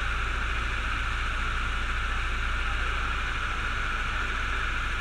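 Go-kart engines idling while the karts wait in line: a steady, muffled low drone with a constant hiss over it, unchanging throughout.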